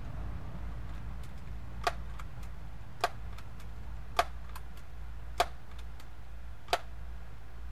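Daisy PowerLine 901 multi-pump air rifle being pumped to charge it for the next shot: five sharp clicks about a second apart as the pump forearm closes, with fainter clicks between.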